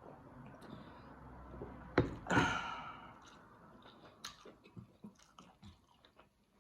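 Close-up chewing and mouth sounds, small wet clicks and crackles scattered through. About two seconds in comes a sudden, loud, breathy noise that fades over about a second.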